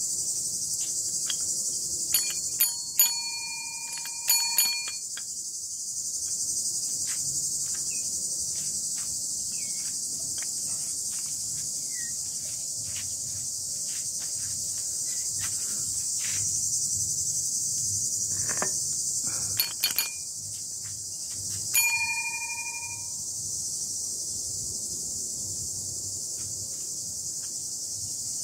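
A steady, high insect chorus, with two brief clusters of sharp metallic clinks that ring on for a moment, one about two to five seconds in and another around twenty to twenty-three seconds in.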